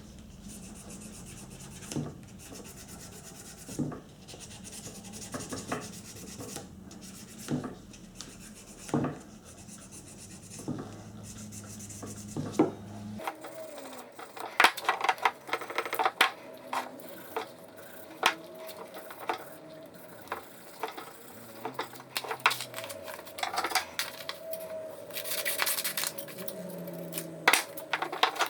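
Hand work on the metal parts of an antique samovar: rubbing and scraping, with sharp knocks every second or two. A low hum stops abruptly about halfway through, after which come many quick metallic clinks and taps.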